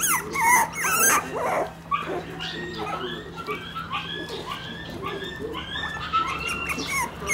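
One-month-old Shiba Inu puppies whining and yipping in short, high-pitched squeaks, several a second, with brief scuffling near the start.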